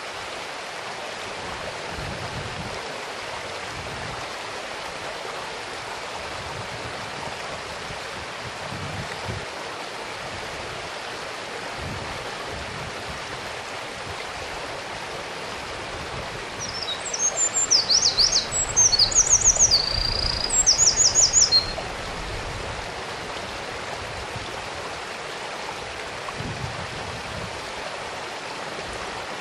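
A mountain stream running steadily. A little past halfway a Eurasian wren sings one loud song of rapid high trills and rattles, about five seconds long.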